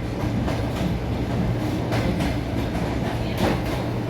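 Suburban electric train running along the track, heard from inside the carriage: a steady rumble with the wheels clacking over rail joints several times.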